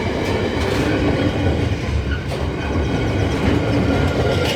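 Slow freight train passing over a level crossing: a steady rumble of wagons, with occasional faint clicks of wheels over the rails.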